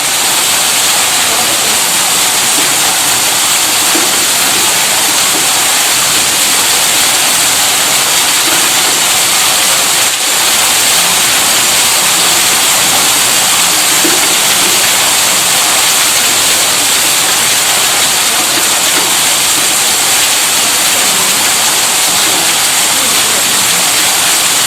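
Steady rushing hiss of water, with a brief dip about ten seconds in.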